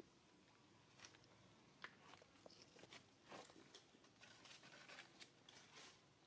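Near silence with faint, scattered clicks and rustles from a macaque mother and her nursing infant moving and eating.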